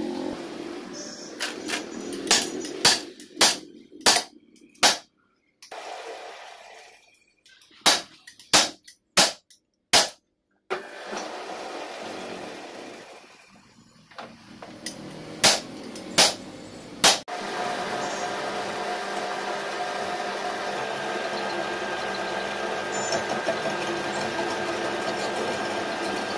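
Sharp knocks in three short clusters, then about two-thirds of the way through a metal lathe starts and runs steadily with a whine, spinning a flour-mill grinding stone mounted on a shaft.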